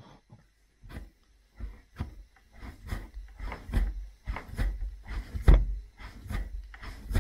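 Red clay being wedged ram's-head style on a wooden workbench: a steady run of dull thuds, about two a second, as the lump is rocked forward and pressed down onto the wood. It starts about a second in. This wedging drives out air bubbles and evens out the clay before throwing.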